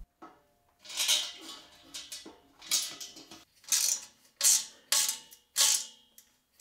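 Socket ratchet tightening bolts on a steel table frame, in about five short runs of clicking roughly a second apart.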